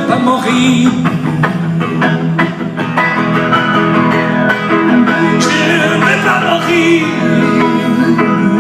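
Live song played on guitars, with plucked and strummed guitar over a band accompaniment.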